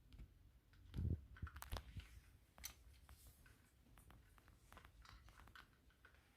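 Green-cheeked conure biting and chewing at a cloth pocket: a string of small clicks and crunches, with a louder thump about a second in.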